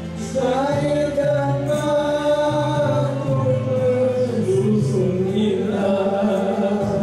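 A man and a woman singing into microphones through a PA system, with long held, slowly wavering notes over steady backing music.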